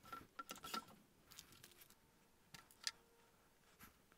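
Near silence, with a few faint clicks and rustles of small parts being handled on a workbench. The loudest is a single tap at about three seconds in.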